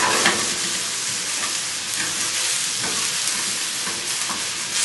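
Sliced onions sizzling steadily in a hot frying pan, with a utensil now and then scraping the pan as they are stirred.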